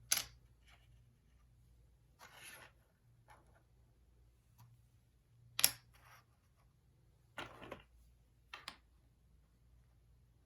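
Hexagon pieces being handled and fitted together on a table: a few brief soft rustles and scattered sharp taps, the loudest tap about halfway through.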